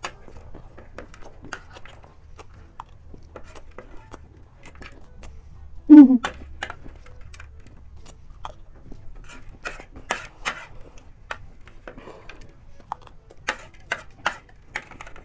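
Crisp clicking and crackling of pani puri shells being cracked open by fingers and a spoon scraping through dry, spiced puffed-rice chatpatey on a plate, with crunchy chewing. A short, loud vocal sound about six seconds in.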